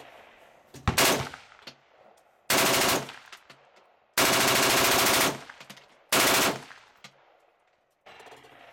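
AR-pattern rifle firing on full automatic in four bursts: a short one about a second in, two of about half a second, and a longer one of about a second in the middle.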